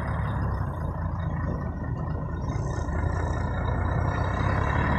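Scania tractor unit's diesel engine running under load as the truck pulls away slowly in gear, a deep steady rumble that grows gradually louder. The truck is on a test drive after its high/low range gear servo was repaired.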